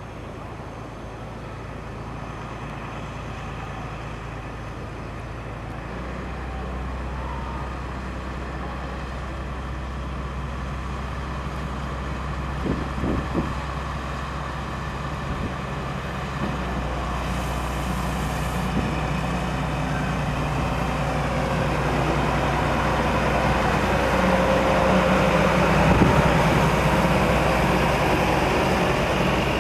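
DB class 399 narrow-gauge diesel locomotive hauling a train of container flat wagons, its engine running steadily and growing louder as it draws near. The engine note steps up about six seconds in, with a few knocks around the middle, and the wheels and wagons rumble past near the end.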